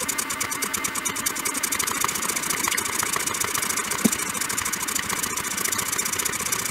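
Sphere-O-Bot egg-painting robot's NEMA 17 stepper motors (17HS15-1704S on A4988 drivers) running as it draws on the egg: a steady, rapid buzzing chatter of steps. A single sharp click comes about four seconds in.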